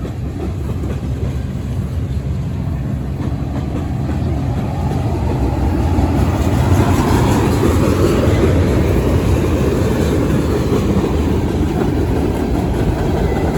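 Low, steady vehicle rumble that grows louder about halfway through.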